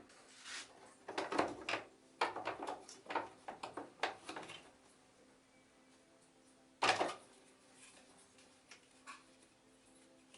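Plastic clicks, rattles and rustling as the filters and dust bag are taken out of a Samsung SC4034 vacuum cleaner's housing, with one louder knock about seven seconds in.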